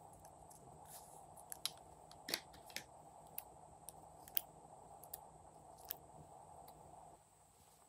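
Scattered sharp clicks and snips as plastic toy lipstick tubes are handled and metal scissors cut off the lipstick tips, over a faint steady hiss that stops near the end.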